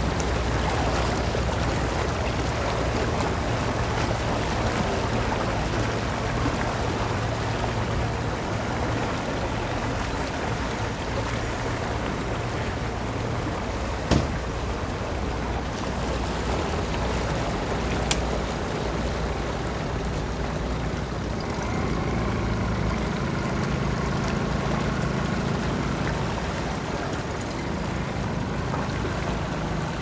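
Boat engines running at idle speed. A low, steady drone fills the first half. From about two-thirds of the way in, a higher steady hum from a small outboard motor takes over. Two sharp knocks sound near the middle, a few seconds apart, over a hiss of wind and water.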